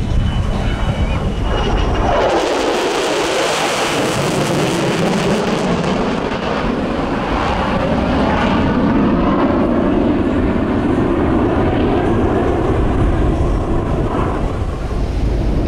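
Lockheed Martin F-35C Lightning II's single Pratt & Whitney F135 afterburning turbofan, loud and steady as the jet flies its display turns. About two seconds in the sound sharpens and sweeps down in pitch as the jet passes, then settles into a steady roar with slowly shifting tones.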